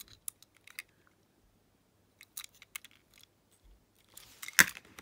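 Light clicks and taps of a small die-cast metal toy car handled in the fingers, in short scattered clusters, with one louder knock near the end.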